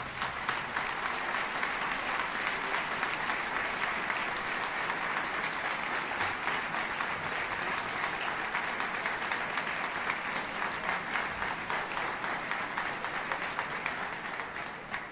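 Audience applauding steadily, a dense patter of many hands clapping that fades away near the end.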